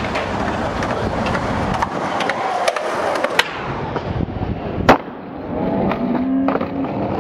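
Skateboard wheels rolling on street concrete with scattered clacks of the board, and a loud slap of a board landing about five seconds in.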